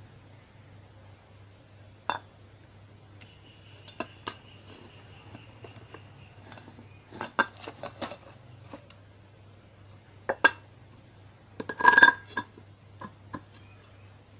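Metal ceiling-fan parts being handled: scattered clinks and knocks as the fan's upper housing is fitted over the stator coil, with the loudest rattle about twelve seconds in. A steady low hum runs underneath.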